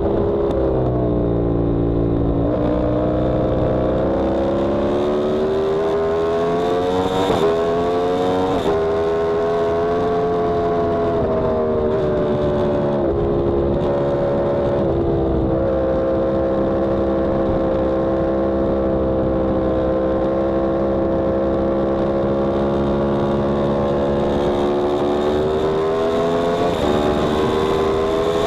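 Yamaha R1M's crossplane inline-four engine heard onboard at speed. The revs fall at the start, then climb with a few sudden steps in pitch at gear changes, hold fairly steady for a long stretch, and rise again near the end.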